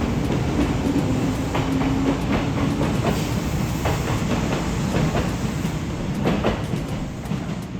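A Kintetsu electric train passing close by, its wheels clacking irregularly over rail joints and points as the cars go over, with a steady rumble underneath.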